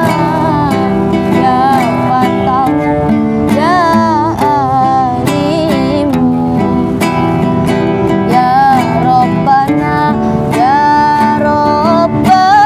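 A woman singing a sholawat (Islamic devotional song) with an ornamented, wavering melody, accompanied by a strummed acoustic guitar.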